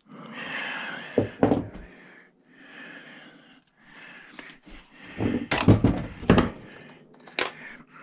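Screws being backed out of a cash register's casing with a screwdriver, with scraping and a few clicks, then a run of loud knocks and clatter of metal parts and screws about five to seven seconds in.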